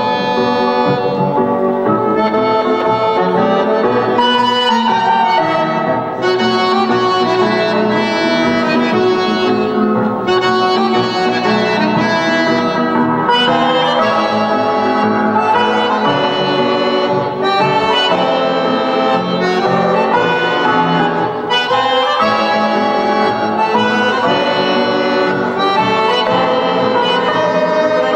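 Button accordion playing a lyrical melody with no pauses.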